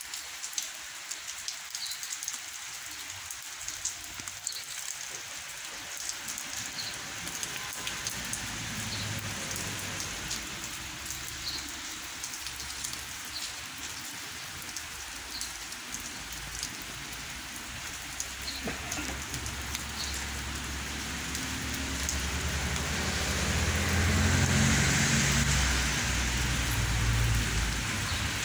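Steady rain falling on garden plants, a continuous hiss with scattered drips ticking close by. A low rumble builds through the second half and is loudest near the end.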